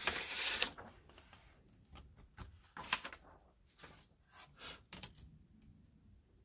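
Paper rustling as a large drafting sheet is slid away, then a scatter of light taps and clicks as paper template pieces and a plastic ruler are handled on a cutting mat.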